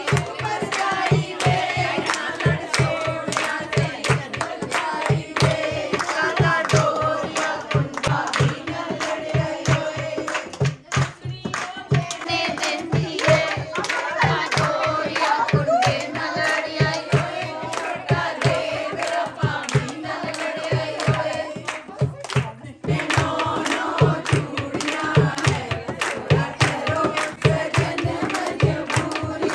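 A group singing a folk song together over a quick, steady dholki drum beat, with two brief breaks.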